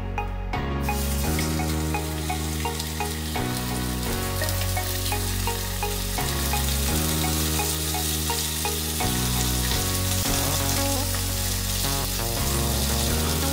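Flour-dredged turkey breast pieces sizzling in hot oil in a stainless steel frying pan as they are laid in and turned with tongs. The sizzle starts sharply about a second in and keeps on steadily. Background music with a repeating bass line plays under it.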